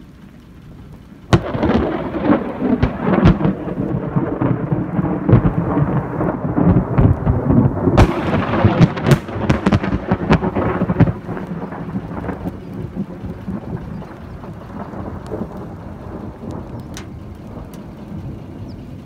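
Thunder from a very close lightning strike: a sudden sharp crack about a second in, then crackling and rumbling with more cracks, loudest for the first ten seconds, before a lower rumble slowly fades away.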